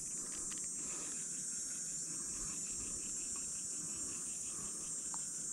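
Steady high-pitched insect chorus from the riverbank vegetation, with a faint rapid pulsing underneath.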